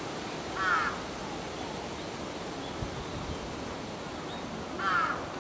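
Two short, harsh animal calls, one just under a second in and one near the end, over a steady outdoor hiss.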